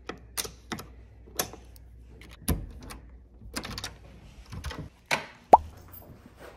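Keys and locks being worked at a door: a Master Lock key lock box tapped and opened, then a key turned in a steel lever-handle lock, making a series of small clicks, knocks and key rattles with a low thump about two and a half seconds in. The loudest moment is a short upward squeak with a thump about five and a half seconds in as the door is opened.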